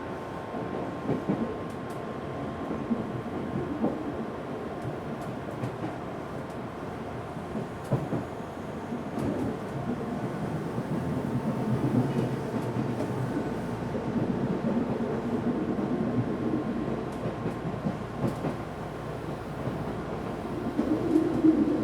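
Interior running sound of an Odakyu 1000-series electric train in motor car DeHa 1008: a steady rumble of wheels on rail with scattered clicks over the track. The air conditioner is running, and a faint steady tone sits underneath.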